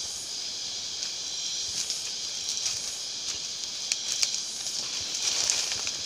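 Footsteps and rustling of leaf litter and undergrowth on a steep jungle trail, a few scattered crunches and brushes, over a steady high hiss of forest insects.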